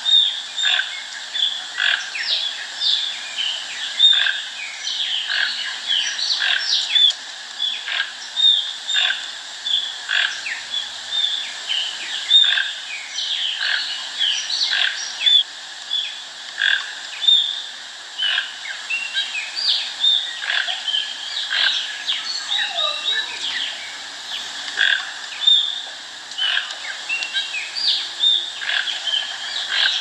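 Channel-billed toucan (ariel form) croaking: short, hoarse calls repeated one or two a second without a break, some overlapping as if from more than one bird.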